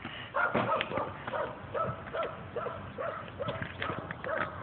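A dog barking over and over in short barks, about two a second, with a few sharp clicks among them.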